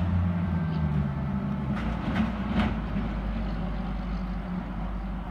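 A fire engine's diesel engine running as the truck pulls away up a street, its low drone fading as it recedes. A few short rushing bursts sound around two to three seconds in.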